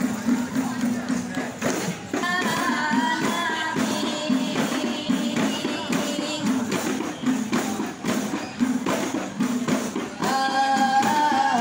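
Rebana frame drums beaten in a steady, busy rhythm. A sung line comes in about two seconds in and again near the end.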